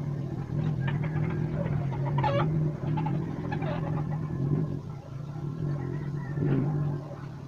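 A steady low hum with a few short calls over it that bend up and down in pitch, the clearest about two seconds in.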